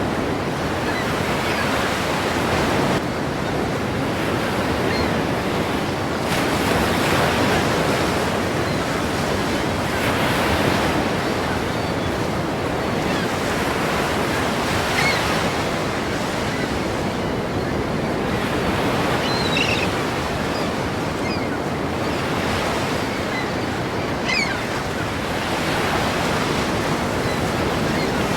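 Ocean waves breaking: a continuous rush of surf that swells with each breaker every few seconds.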